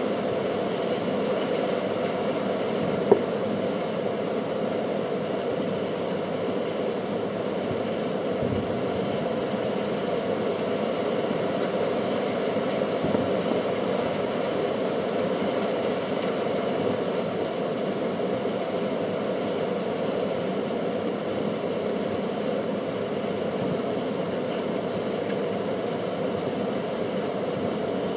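A steady low hum throughout, with one sharp bang from a firework about three seconds in and a fainter pop near the middle.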